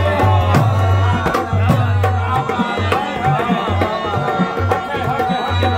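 Qawwali instrumental interlude: a harmonium playing a sustained melody over a steady beat on a dholak hand drum.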